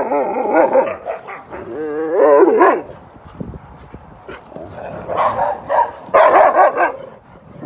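A dog talking back: wavering, pitch-bending yowl-like vocalizations in three bouts, the first at the start, the second about two seconds in and the last from about five to seven seconds in.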